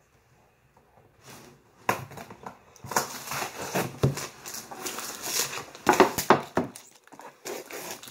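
Sticky tape and a cardboard toy box being pulled and torn open by hand: a run of crackling, rustling and tearing that starts about two seconds in and dies down near the end.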